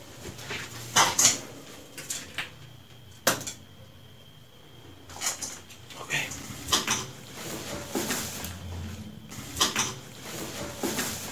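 A plastic container knocking and clattering: a series of sharp, irregular hollow knocks, loudest about a second in and again around three seconds. This is the 'strange noise' heard in the dark, which turned out to be the plastic container.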